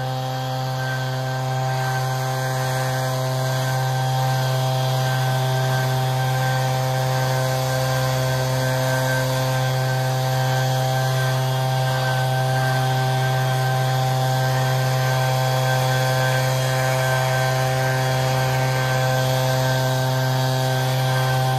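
Echo PB-8010T backpack leaf blower's two-stroke engine running steadily at high throttle, blowing air through its tube.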